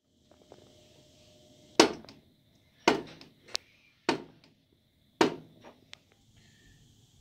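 Stripped-out Andersen casement window crank operator popping as the crank handle is turned: four loud, sharp pops about a second apart, with a couple of fainter clicks between. The popping is the sign of stripped operator gears, an operator that is broken and needs replacing.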